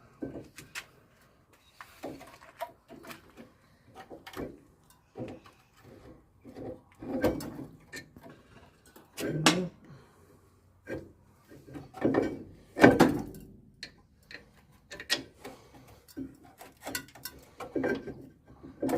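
Irregular clicks, knocks and scraping of metal brake parts being handled and worked into place on a disc brake caliper, with a few louder clunks.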